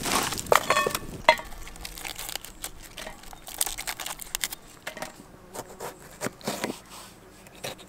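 A few sharp metallic clinks with a brief ring in the first second or so, as a pan is handled over a campfire, then scattered crisp crackles of romaine lettuce leaves being torn apart and a knife slicing through a tomato on a cutting board.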